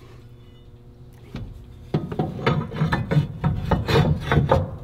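Hand ratchet clicking in quick strokes, about four a second, starting about two seconds in, as a factory bolt is run in to hold an isolator bracket under a truck bed.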